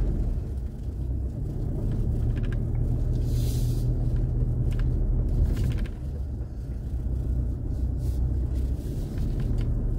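Truck driving slowly over a bumpy gravel dirt road: a steady low rumble of engine and tyres, with a few light knocks.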